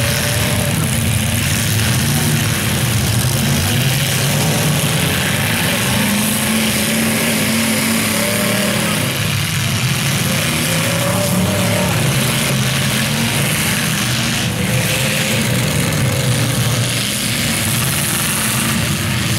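Several demolition derby cars' engines running and revving at once, their pitches rising and falling as the cars push and ram in the mud.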